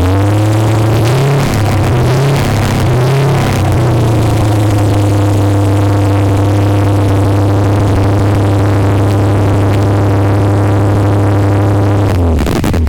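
Car engine revved up, blipped a few times, then held at a steady raised speed for several seconds before dropping back near the end.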